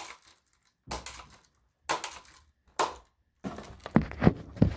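Air-gun shots striking a plastic coffee maker, four sharp cracks about a second apart. A stretch of rattling and knocking follows near the end.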